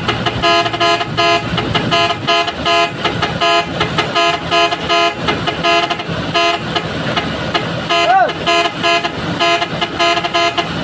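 Vehicle horn sounding in rapid, rhythmic toots, several tones at once, with the pitch of the tones shifting now and then. A short rising-then-falling tone cuts in about eight seconds in.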